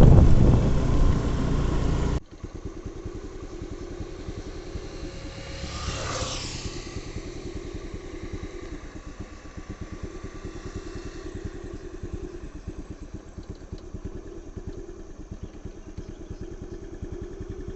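Vehicle engine running on the road. Loud noise drops off suddenly about two seconds in, leaving a quieter engine with a fast, even pulse. A brief swell of noise rises and falls around six seconds in.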